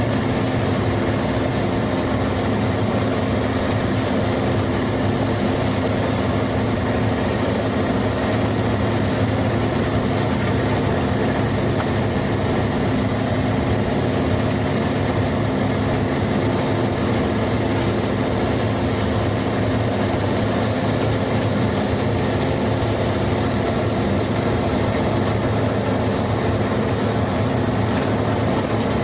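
Kobelco SK50P mini excavator's diesel engine running steadily, with faint scattered ticks over it.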